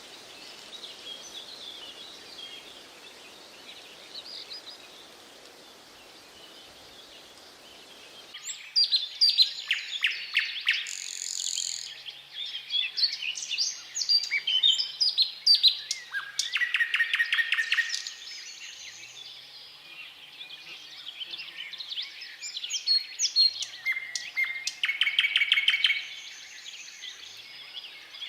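Nightingale singing: loud, varied song phrases with fast trills of rapidly repeated notes, separated by short pauses. The song starts about eight seconds in, over fainter birdsong in the background.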